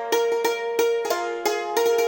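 Instrumental music on a plucked string instrument: a melody of quickly plucked, ringing notes with no singing.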